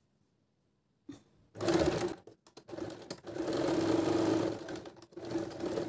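Domestic sewing machine stitching a waistband joint seam. A click comes about a second in, then the machine runs in a few short stretches with brief stops, a steady hum under the needle's chatter, and it stops right at the end.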